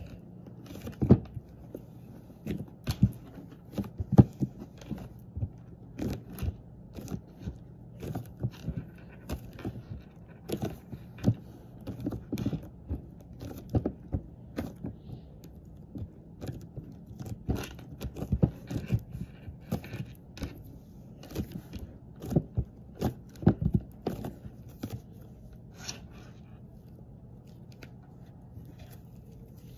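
Soft slime being poked, pressed and pulled apart by hand: irregular squishes and small pops, several a second, over a faint steady low hum.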